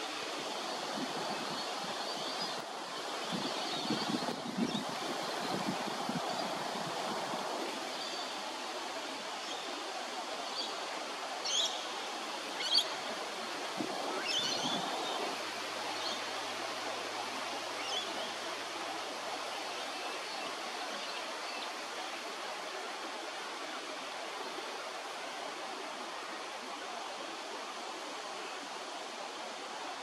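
Steady rushing outdoor background noise, with a few short, high bird chirps about twelve to fifteen seconds in and some soft low knocks around four to five seconds in.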